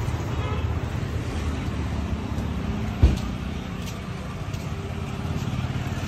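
Tractor diesel engine running steadily, with road traffic behind it; one short sharp knock about three seconds in.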